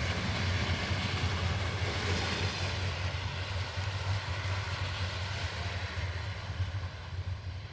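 Passenger train running away along the track: a steady low rumble with a hiss above it, slowly fading as it recedes.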